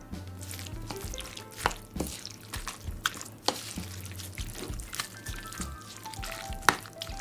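Kimchi stew with rice being stirred and mashed with a wooden spoon in a ceramic bowl: wet squelching and scraping with sharp clicks of the spoon against the bowl, the sharpest near the end. Background music plays underneath.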